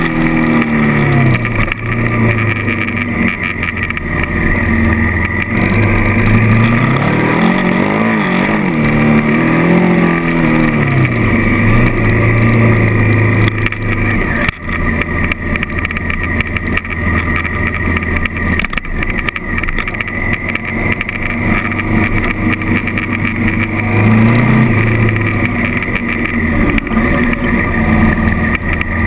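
Honda CRF1000L Africa Twin's 998 cc parallel-twin engine running under way on a dirt track, its revs climbing and falling several times as the throttle is opened and closed, and otherwise holding steady.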